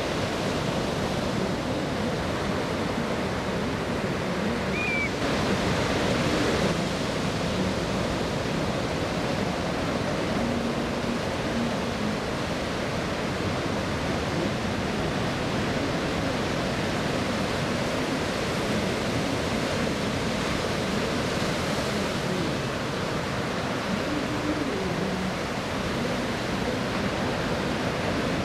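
Steady rushing noise of a C-5M Super Galaxy's four turbofan engines as the transport banks through a slow flyby.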